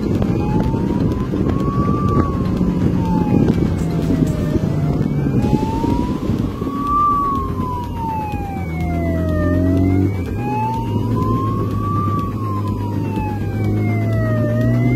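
Police motorcycle siren in a slow wail, rising and falling about once every five seconds, over wind noise and the motorcycle's engine. From about halfway through the engine is plainly heard, its pitch climbing near the end as the bike accelerates.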